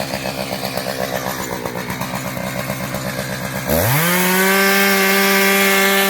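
Two-stroke chainsaw idling with an uneven, pulsing beat, then revved sharply about three and a half seconds in and held at full throttle in a steady high whine.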